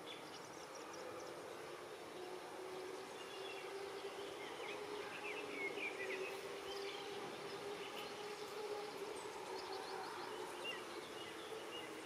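Riverside ambience: a steady low hum under a faint wash of noise, with short bird chirps now and then, most of them in the middle.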